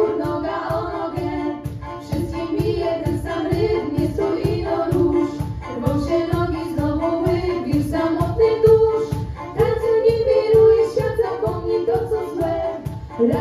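A small group of girls singing a Polish song together, accompanied by violin over a steady quick beat of about four strokes a second.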